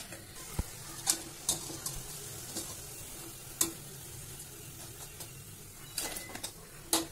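Cabbage-onion pakodas deep-frying in hot oil in a steel kadai, a steady sizzle. Now and then a wire-mesh spider strainer clinks against the steel pan and colander.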